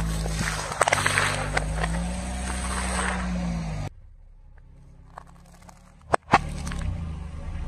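Car tyre rolling slowly over bowls of crunchy ring cereal, with many small crackles and crunches over the car's running engine. After a sudden cut it goes quieter, then two sharp cracks a little after six seconds as the tyre crushes a small pile of green objects, and the engine hum comes back.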